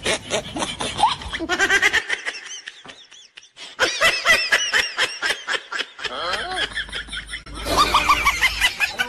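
Laughter in quick high-pitched pulses, dying down for about a second and a half some two seconds in, then starting up again.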